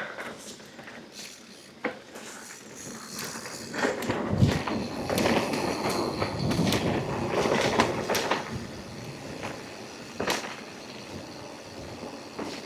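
Mountain bike riding down a dirt trail: tyres rolling over dirt with rattling, clicking and knocking from the bike. It gets louder and rougher from about four seconds in, with a heavy thump near the start of that stretch, then eases off near the end.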